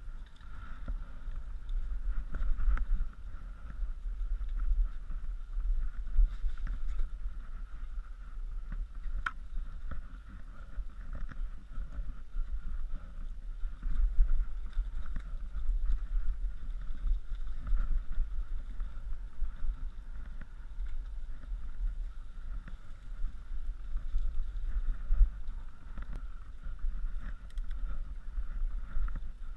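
Mountain bike ride heard from a helmet-mounted camera: wind buffeting the microphone and the bike rattling over a leaf-covered dirt trail, a low uneven rumble with irregular knocks and a steady faint high hum underneath.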